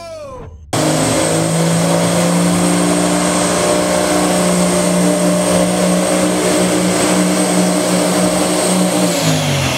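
Race semi-truck's diesel engine held at high, steady revs during a burnout, with a thin high whine and tyre noise over it. It cuts in abruptly about a second in, and near the end the revs drop off.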